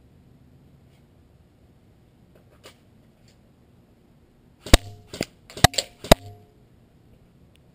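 Airsoft BBs striking the helmet and the GoPro mounted on it: one faint tick, then five sharp, loud hits in about a second and a half, some with a brief hard ring.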